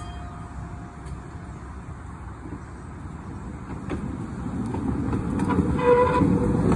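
Den Haag PCC streetcar pulling away and rolling past on its rails: a low rumble that grows louder over the last few seconds, with a steady humming tone coming in near the end.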